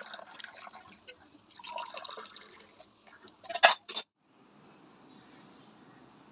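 Liquid, likely tea, poured through a steel strainer into a ceramic mug, trickling and dripping. A few sharp clinks come just before four seconds in, then only faint room tone.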